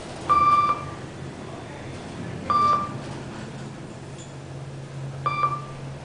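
Kone EcoSpace traction elevator's electronic chime beeping three times, about every two and a half seconds, as the car passes floors on its way up; the chime sounds kind of messed up. A low steady hum from the moving car runs underneath.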